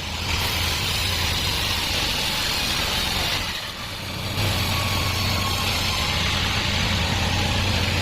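Band sawmill running and cutting through a log: a steady low drive hum under the hiss of the blade in the wood. The cutting noise drops away briefly about three and a half seconds in, then picks up again.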